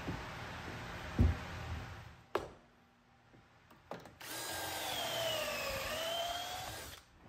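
Electric biscuit joiner cutting a slot: its motor whine sags in pitch under load and climbs back, for about three seconds in the second half. Before it come a heavy thump and a couple of sharp clicks.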